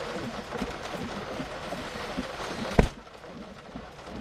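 Storm wind and rain noise with a run of low thuds, and one sharp bang a little under three seconds in, after which the noise drops off.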